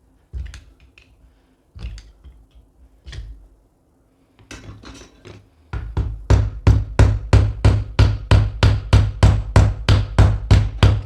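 Hammer blows on the cast-iron body of an old hydraulic door closer, beating at a seized threaded cap to drive it loose. A few separate blows come first, then from about halfway a fast, steady run of strikes, about three a second.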